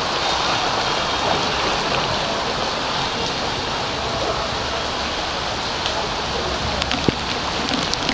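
Heavy rain pouring onto a flooded street, a steady hiss of rain and water, with a few small sharp knocks about seven seconds in.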